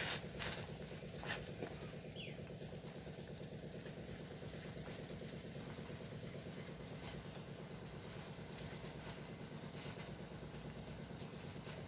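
A pot of herbal decoction (kashayam) of leaves, ginger, turmeric and pepper in water, boiling on the stove with a steady, fast bubbling. A couple of light clicks come in the first second or so.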